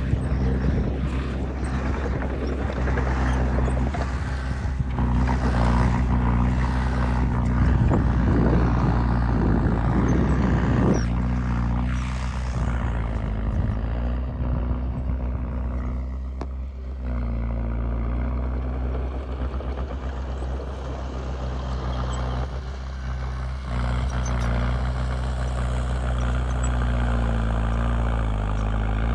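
Heavy diesel earth-moving machinery running steadily, its engine drone constant. There is a rougher, noisier stretch for about the first ten seconds before it settles.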